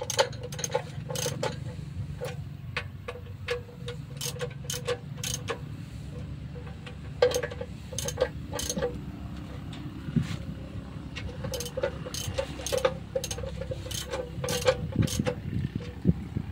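Irregular metallic clicks and taps of hand tools working on the top of a small single-cylinder stationary engine, with ratchet-like clicking, over a low steady rumble.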